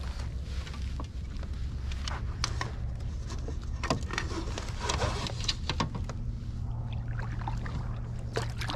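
Scattered clicks and knocks of gear being handled in a plastic fishing kayak as a fish-measuring board is stowed and a rod picked up, over a steady low hum.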